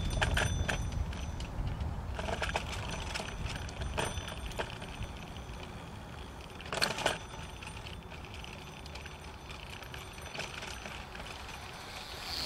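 A bicycle rattling and clinking as it rolls along, over a low steady rumble, with a louder clatter about seven seconds in.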